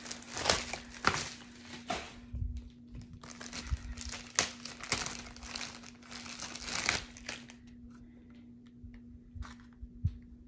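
Plastic packaging crinkling and rustling as it is handled and opened, in a run of bursts for about seven seconds, then a few light clicks and taps as a small box is handled. A faint steady hum underneath.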